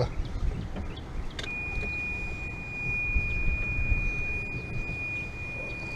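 Golf cart's reverse warning buzzer sounding one steady, high-pitched tone that starts about a second and a half in, with the cart's low rumble underneath: the cart is in reverse.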